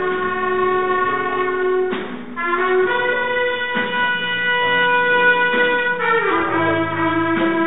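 Jazz band's horn section, trumpets and trombones, playing a slow passage of long held notes. The notes move to new pitches about two, three and six seconds in.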